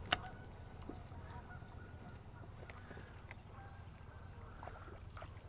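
Geese honking faintly now and then, with a single sharp click just after the start and a low steady rumble underneath.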